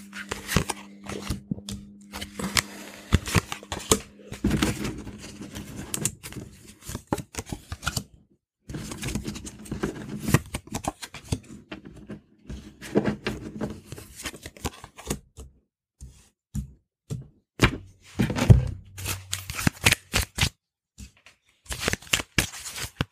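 Oracle cards being handled and dealt onto a wooden tabletop: a string of card snaps, taps and slides, broken by a few short pauses.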